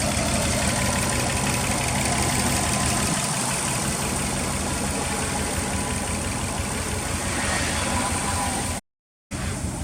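Subaru GDB Impreza's turbocharged flat-four engine idling steadily through a Fujitsubo aftermarket muffler. The sound cuts out abruptly for about half a second near the end.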